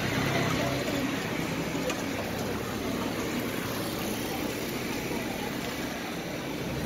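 Steady outdoor street ambience: an even background hum with faint voices and no single sound standing out.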